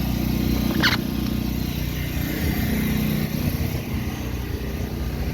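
Steady low hum of running central air-conditioner condensing units, compressor and condenser fan motors. A brief higher sound comes about a second in.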